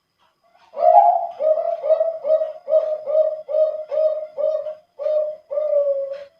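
Male Bangkok-strain zebra dove (perkutut) singing its contest song: a longer opening coo, then a rhythmic run of about ten short, low coos at two to three a second, the last one drawn out and falling slightly. The voice is deep and full, the thick tone prized in contest birds.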